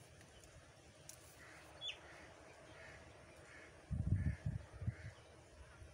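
Crow cawing repeatedly, about six caws evenly spaced a little over half a second apart. A low rumble on the microphone about four seconds in.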